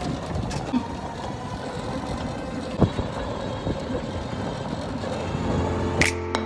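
Wind buffeting the microphone and road rumble from riding in an open electric cart, with a single knock about three seconds in. Music with chiming notes fades in near the end.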